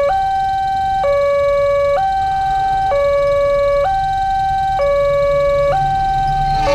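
Indonesian railway level-crossing warning siren sounding its alternating two-tone alarm, a lower and a higher tone each held just under a second in steady turn. It signals that a train is approaching and the crossing is closing.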